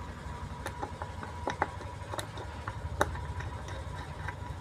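Small screwdriver tightening the screws of a car bass-tube amplifier board into its metal mounting plate: scattered light clicks and taps.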